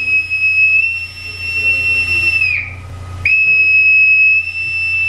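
Boatswain's pipe sounded over a ship's announcing system: a long, steady, high whistle that dips and breaks off about two and a half seconds in, then a second long note from about three seconds in. A steady low hum runs underneath.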